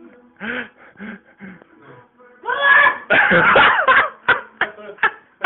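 People laughing in short bursts, then a louder, longer stretch of laughter about two and a half seconds in, breaking into quick short laughs near the end.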